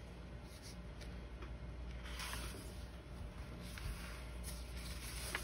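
Faint rustling of a paperback picture book's cover and pages being turned and handled, over a low steady hum.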